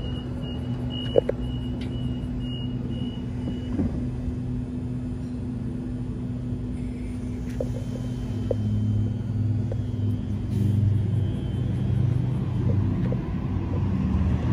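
Waratah double-deck electric train pulling away, its traction motors giving a low steady hum that grows louder over the second half as it speeds up past. A single sharp knock comes about a second in.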